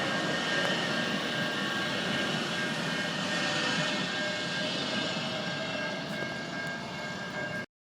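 Sound Transit Link light rail train running: a steady rushing rumble with a thin high whine over it, cutting off suddenly near the end.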